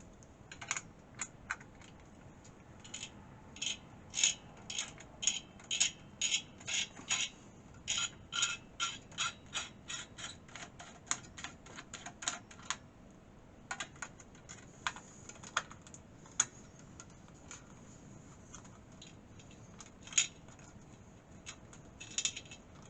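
A long irregular run of small sharp mechanical clicks and ticks, several a second, thinning out in the second half: hands working on the PC's CPU and its mounting hardware on the motherboard.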